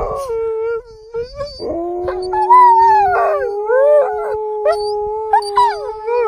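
Two Alaskan malamutes howling together. After a short break about a second in, one holds a long, steady, lower howl while the other's higher howl wavers up and down over it.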